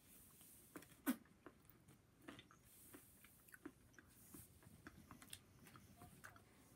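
A person chewing a mouthful of food close to the microphone: faint, irregular wet mouth clicks, with one louder click about a second in.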